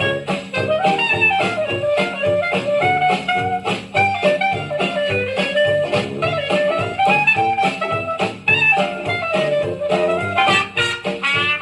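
Jazz music with horns and a steady beat, played back from a freshly cut home-recorded disc: a test cut made on a Presto record lathe with furniture polish in place of cutting fluid.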